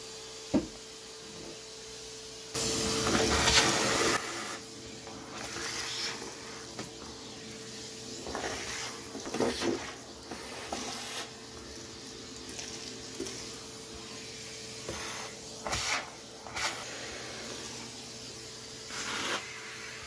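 Henry canister vacuum running with a steady motor hum while its wand nozzle sucks along carpeted stair treads. A loud rush of air and grit runs for about a second and a half near the start, and shorter surges come later as the nozzle is pressed and lifted.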